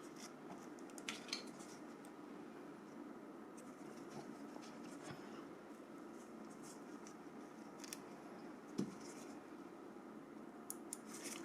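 Faint scattered clicks and light taps as the plastic parts of a Nokia 5530 phone are handled during reassembly, with one louder knock about nine seconds in.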